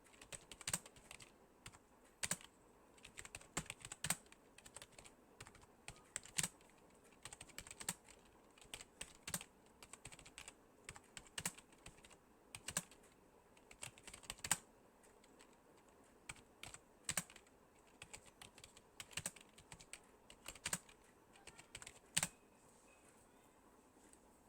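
Typing on a phone's on-screen keyboard: quick, irregular taps and clicks, several a second, that stop about two seconds before the end.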